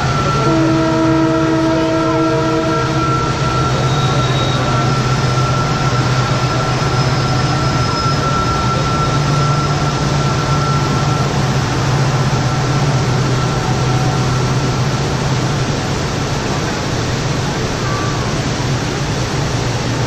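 A train crossing the bridge in front of a large waterfall, its horn sounding for about two and a half seconds near the start, over the steady rush of falling water. A thin, steady high tone holds until about eleven seconds in.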